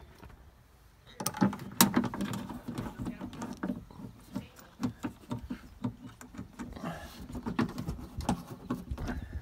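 Irregular small clicks, taps and rattles from hands working at a metal wiper-motor mounting bracket and its bolts, fitting the bolts. They start about a second in.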